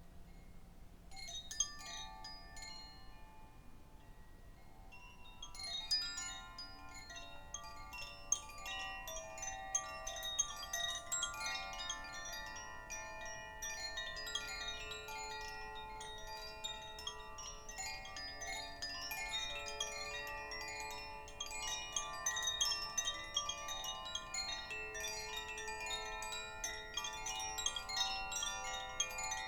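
Chimes ringing in a healing sound bath: a few scattered strikes at first, then about five seconds in a dense cascade of many overlapping, sustained ringing tones that continues on.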